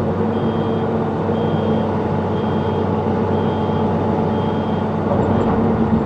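Zoomlion ZE215E excavator's diesel engine and hydraulics running under load, heard from inside the cab, as the bucket is curled closed. A short high beep repeats about once a second and stops near the end.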